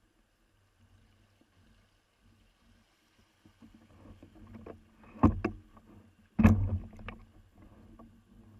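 Hollow knocks and thuds on a plastic kayak, two loud ones a little over a second apart past the middle, with several lighter knocks around them.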